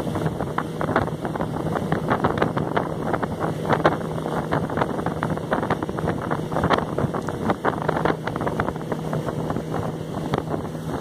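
Small motorboat's outboard motor running steadily at speed, a constant low hum under water rushing and splashing past the hull, with wind gusting on the microphone.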